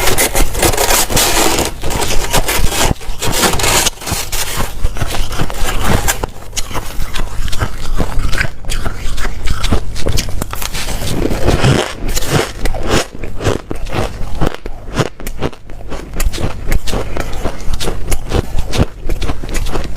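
Close-up biting and chewing of white snow ice: a dense, continuous run of crunches and crackles.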